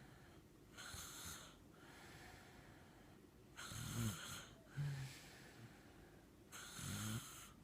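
A sleeping little girl snoring: three breathy snores about three seconds apart. The second and third carry a low, rasping voiced tone.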